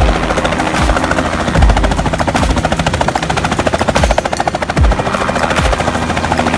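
Battery-electric Robinson R44 helicopter in a low hover just above the tarmac: a fast, steady chop from the main rotor blades over a steady hum. Heavy low rumbles come and go several times.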